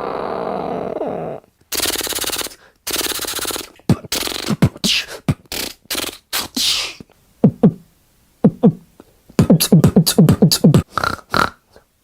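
A man making sound effects with his mouth: a steady hiss, then two buzzing bursts, scattered clicks and pops, and near the end a fast run of short falling chirps.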